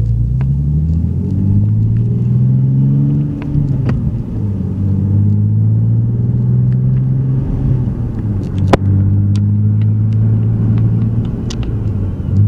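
Nissan 370Z's 3.7-litre V6 through a freshly fitted AAM 2.5-inch true dual cat-back exhaust, driving. The note climbs for a couple of seconds, drops at a shift about four seconds in, then holds a steady low cruising tone. There is a sharp click about nine seconds in.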